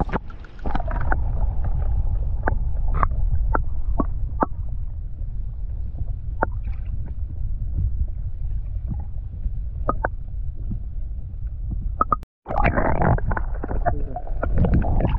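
Boat moving on the water: a steady heavy low rumble with repeated sharp knocks, cutting out for a moment near the end.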